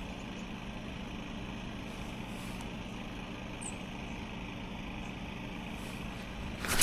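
Steady low engine hum, with a brief sharp, noisy sound near the end.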